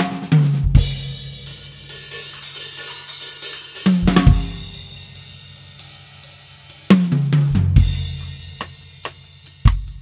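Tama Starclassic drum kit being sound-checked: three big hits combining toms, bass drum and crash cymbals, each left to ring out under a cymbal wash, then quicker single strokes near the end.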